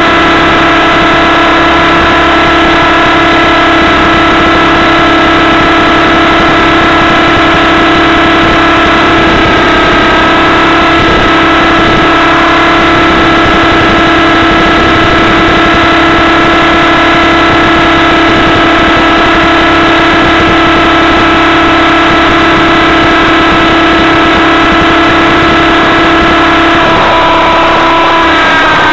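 Hirobo Sceadu EVO .30 RC helicopter's two-stroke glow (nitro) engine and rotors running at a steady high, buzzing pitch, heard right up close from the airframe and very loud. The pitch starts to drop at the very end as the helicopter comes down into the grass.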